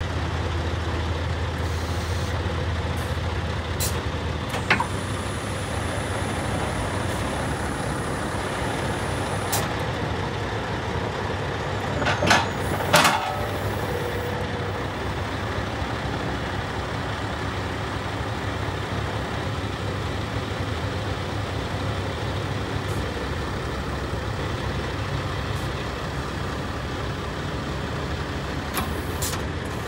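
Scania R730's V8 diesel engine running steadily, driving the hooklift hydraulics as the hook arm raises. A few metallic clanks from the hook arm, the loudest pair about twelve seconds in.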